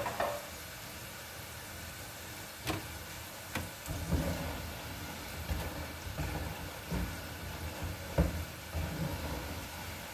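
French fries frying in hot oil in a pot, sizzling steadily. A metal spoon stirs them, clicking sharply against the pot a few times and knocking and scraping in between.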